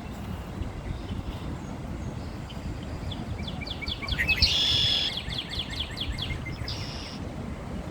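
A songbird singing: a quick run of short, falling high notes with a louder buzzy trill in the middle, then one short buzzy note. This sits over a steady low rumble of background noise.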